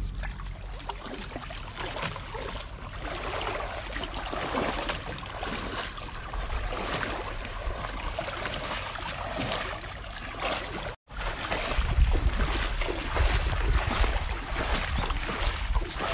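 People wading through shallow water, their steps sloshing and splashing irregularly, with wind rumbling on the microphone in the last few seconds. The sound drops out for a moment about eleven seconds in.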